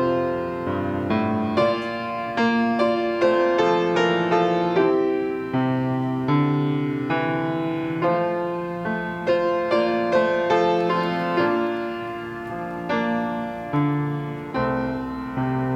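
Piano playing a slow, gentle church piece: notes and chords struck and left to ring and fade.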